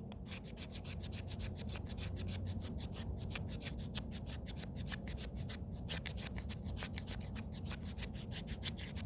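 Sharp spine of a Mora carbon-steel knife scraping a stick of resin-rich fatwood in quick repeated strokes, about six or seven a second, raking off fine shavings.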